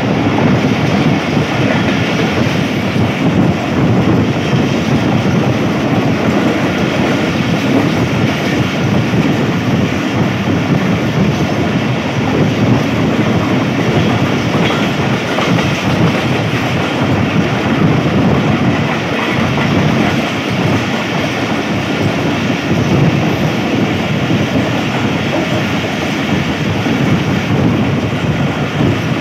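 Pakistan Railways passenger coach running at speed: a steady, loud noise of wheels on the rails, heard from the coach's open doorway.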